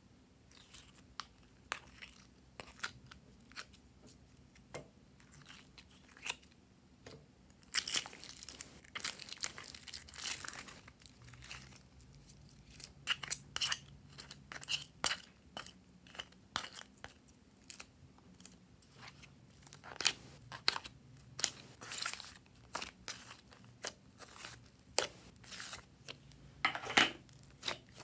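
Glossy slime being handled by hand: peeled out of a plastic tray and then stretched and folded, giving a run of short, sharp sticky clicks and crackles, thickest about a third of the way in and again near the end.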